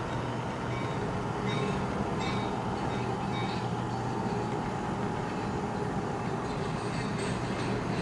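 O gauge model freight train boxcars rolling past on three-rail T-Rail track: a steady rolling rumble with light, irregular clicks of the wheels over the rail joints.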